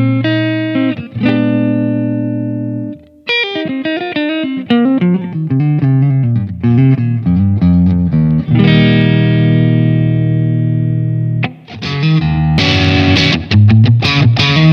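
SQOE SETL960 HH electric guitar with humbucking pickups played clean: held chords, a run of single notes, then a long ringing chord. About twelve seconds in it changes to strummed chords with a distorted, gritty tone.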